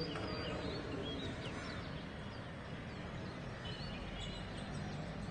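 Outdoor balcony ambience: a steady low hum of city background noise, with many short, high bird chirps scattered throughout.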